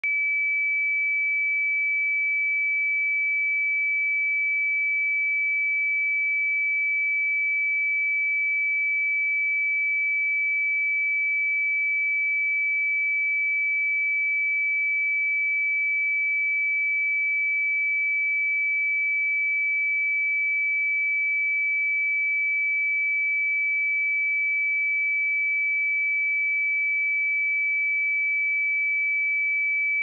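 A pure 2302 Hz sine-wave test tone, one steady high-pitched note held at constant level, for checking speakers or headphones.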